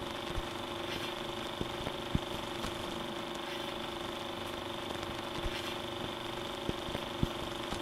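Old film projector running: a steady mechanical hum with hiss, broken by irregular crackling pops.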